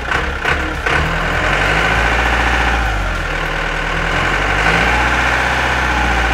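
Tractor engine sound running steadily, stepping up in level about a second in as the tractor pulls away; a dubbed-in engine effect for the toy tractor.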